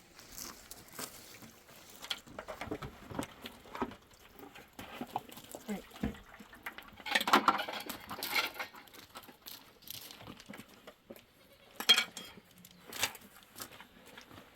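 Goats bleating a few times, the loudest calls about halfway through and again near the end, over scattered light clicks and knocks.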